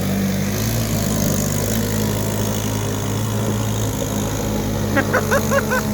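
Vehicle engine idling steadily, with a few short rising-and-falling whines about five seconds in.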